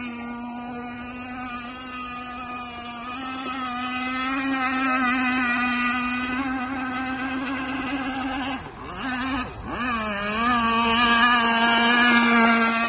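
Gas-powered RC sport hydroplane's two-stroke engine running flat out on the water, a steady high-pitched whine. About nine seconds in the pitch drops and the sound dips twice briefly, then the whine climbs back and grows louder near the end as the boat runs close by.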